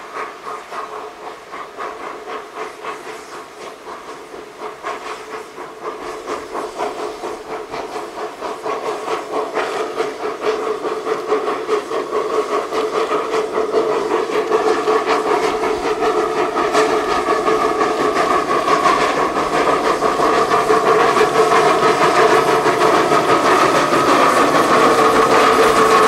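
Narrow-gauge steam locomotive working a train, with a rapid, even beat of exhaust chuffs and steam hiss. It grows steadily louder as the engine approaches.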